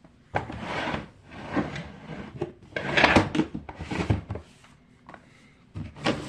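Fidget toys being handled and moved about during counting: a run of rustling, scraping handling noise, loudest midway, with another short burst near the end.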